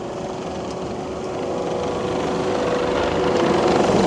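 Takeuchi TL12V2 compact track loader's engine running under load, driving a Conatex soil-conditioning grinder attachment on high-flow hydraulics: a steady machine drone with a held hum, growing louder toward the end.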